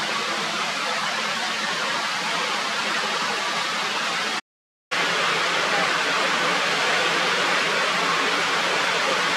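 Steady rushing noise, like falling water, with no distinct events. It cuts out to silence for about half a second near the middle, then comes back slightly louder and brighter.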